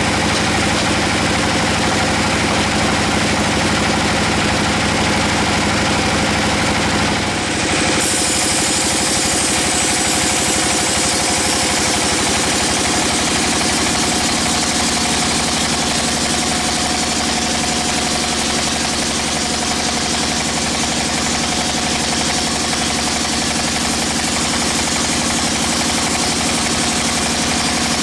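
Sawmill machinery running steadily, a machine hum with a hiss that becomes fuller and brighter about eight seconds in.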